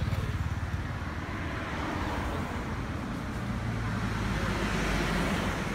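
A road vehicle passing close by, its low rumble and tyre noise building to a peak about five seconds in, then beginning to fade.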